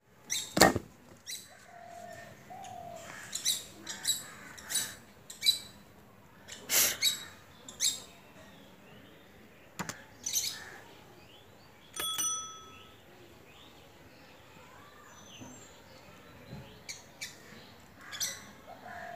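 Birds chirping and calling, with a scatter of sharp knocks and clicks, the loudest about half a second in.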